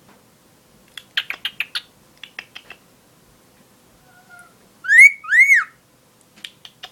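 Pet bird chirping in quick runs of short notes, then two loud whistles, the second rising and falling.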